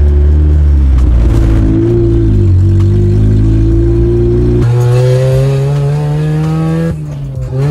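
Car engine heard from inside the cabin while driving, on a test drive after a throttle position sensor replacement for bogging and sputtering under acceleration. The engine note holds fairly steady, changes a little past halfway, then climbs slowly before dipping briefly near the end.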